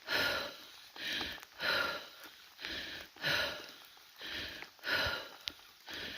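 Heavy, rhythmic breathing of a person walking uphill, close to the microphone: a louder breath about every second and a half with a softer one between.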